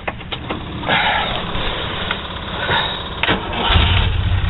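Cold start of the Iltis's water-cooled four-cylinder Volkswagen engine: a few clicks, then about three seconds of starter cranking, and the engine catches near the end and settles into a steady low idle.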